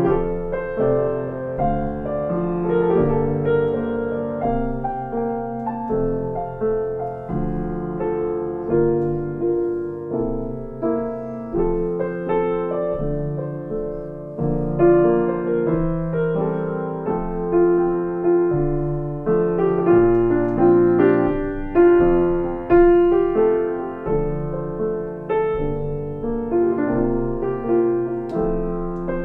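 Piano played continuously, a flowing run of chords and melody notes, each struck note fading before the next.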